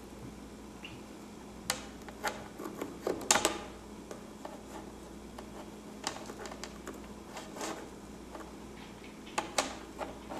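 Scattered sharp clicks and taps of hard parts being handled and fitted as the front glass panel of a 2008 aluminum iMac is set back in place. There is a cluster of clicks in the first few seconds, a few lighter taps in the middle and two or three more near the end.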